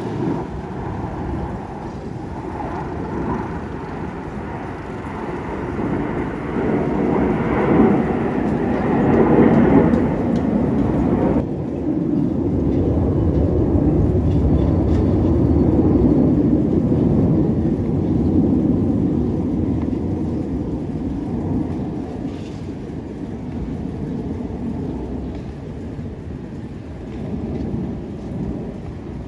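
The turbofan engines of a formation of T-50B jets passing as a distant, low rumble. It builds over the first ten seconds, stays strong for a while, then slowly fades.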